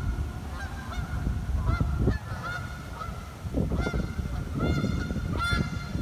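A flock of geese honking in flight: repeated short, nasal honks from several birds, about two a second, the loudest near the end, over a steady low rumble.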